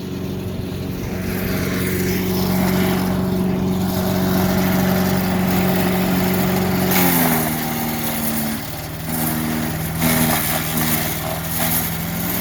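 Craftsman 4 HP wood chipper/shredder running at a steady speed, with its engine pitch dropping a little about seven seconds in and irregular knocks and crunches from the second half on, as it chews through sticks.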